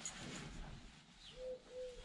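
A dove cooing: two short, even coos in a row starting about a second and a half in, each dipping slightly at the end. A soft rustle comes before them at the start.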